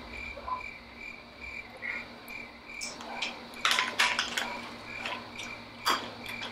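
Chewing crunchy honey almond peanuts, with short crackles about three and a half seconds in and again near the end. A cricket chirps in an even, pulsing rhythm in the background.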